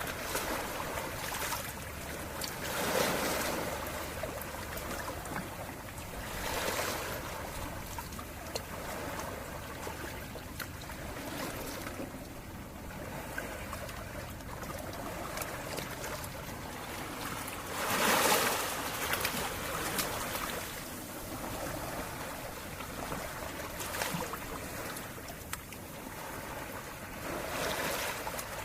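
Calm sea waves washing in gently, each swell rising and falling every few seconds, with a larger wave about two-thirds of the way in.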